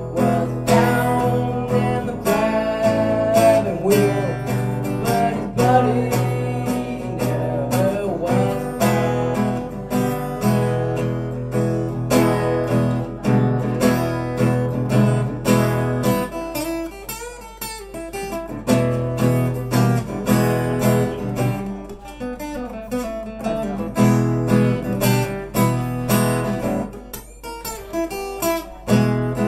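Acoustic guitar played live, strummed chords with a couple of lighter, sparser passages in the second half.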